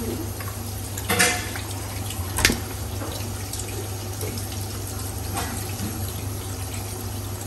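Kitchen tap running steadily onto raw chicken pieces being rinsed and rubbed by hand in the sink. Two brief louder sounds come about a second in and two and a half seconds in, over a steady low hum.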